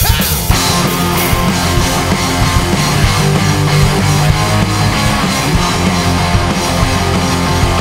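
Rock band playing loud with electric guitar and drums, no vocals. The music cuts in suddenly at the start.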